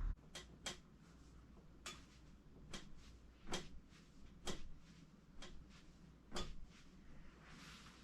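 A series of about eight faint, sharp clicks, mostly a second or less apart, with the strongest in the middle, then a brief soft rustle near the end.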